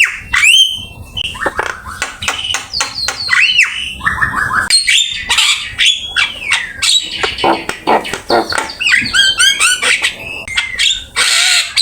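Javan myna singing continuously: a fast, varied run of whistles, rising and falling glides and sharp clicking notes, full of mimicked calls of other birds.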